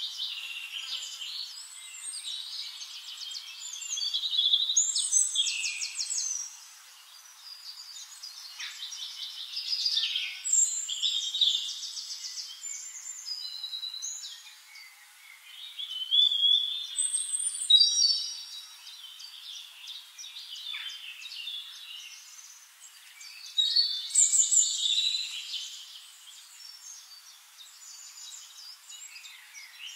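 Several birds singing and calling at once, overlapping rapid trills and short whistled phrases that swell in bursts every few seconds.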